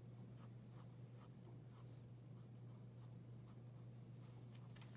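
Pencil sketching on paper: faint, irregular scratchy strokes as the outline of a figure's arm is roughed in, over a steady low hum.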